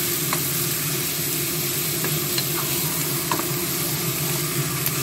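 Chicken pieces sizzling in hot oil in a nonstick wok while a wooden spatula stirs them, with a few faint taps and scrapes of the spatula on the pan. A steady low hum lies underneath.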